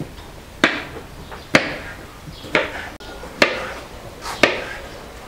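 Kitchen knife chopping green peppers on a cutting board: five sharp knocks of the blade on the board, about one a second.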